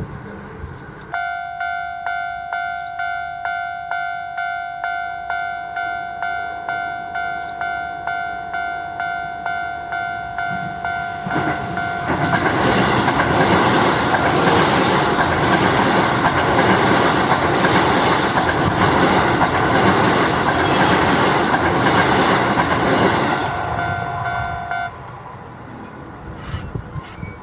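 Japanese level-crossing alarm ringing a steady two-tone electronic clang, about two strokes a second. About eleven seconds in, a Keio 5000 series electric train passes over the crossing for about ten seconds, loud wheel and running noise over the alarm, which stops a couple of seconds after the train has gone.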